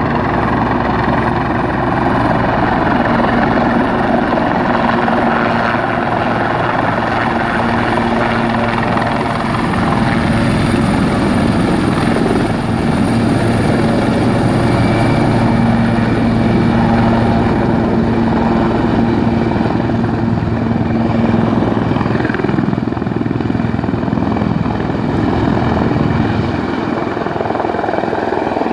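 Sikorsky S-76B helicopter coming in to land, its rotors and twin turboshaft engines running loud and steady close by. The low hum drops away near the end as it moves off low across the airfield.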